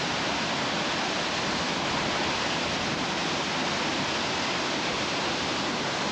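Hurricane wind and heavy, wind-driven rain making a steady, even roar.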